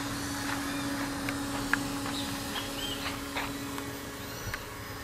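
Steady low hum of a small radio-controlled model boat's motor running on the water, easing slightly near the end, with birds chirping in short calls throughout.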